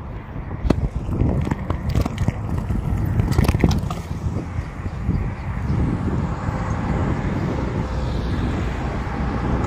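Wind buffeting the microphone and road noise from a moving bicycle, with a few sharp clicks and rattles in the first four seconds.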